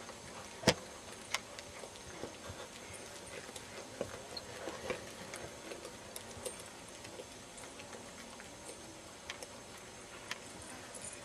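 Oldenburg gelding cantering on arena sand: soft, irregular hoofbeats with scattered sharp clicks, the loudest about a second in.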